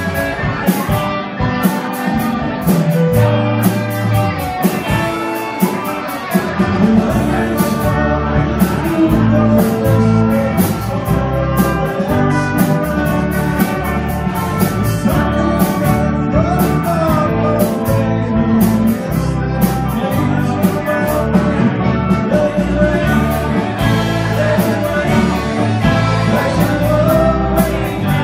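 Live blues-rock band playing through amplifiers: several electric guitars over a drum kit, with the low end filling out about six seconds in.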